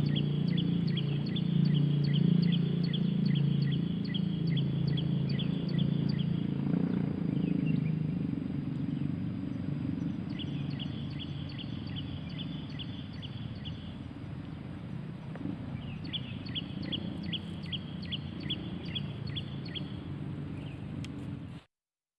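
A wild animal calling outdoors: bouts of rapid, short, high chirps, about four a second, three times over, with a low steady rumble underneath that fades away.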